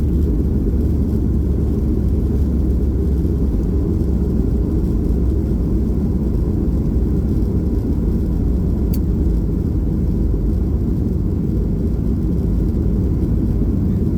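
Steady low rumble of a Boeing 737-800 airliner heard from inside the passenger cabin.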